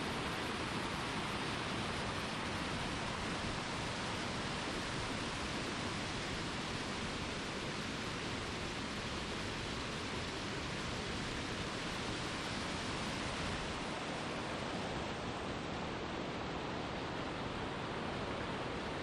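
Mountain stream flowing over rocks: a steady, continuous rush of water.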